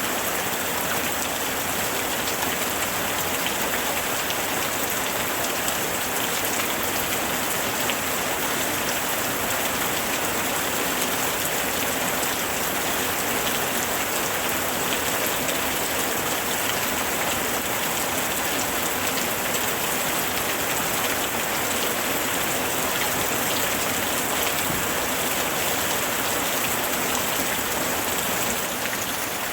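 Heavy rain falling steadily, a dense even hiss of countless drops, a little quieter near the end.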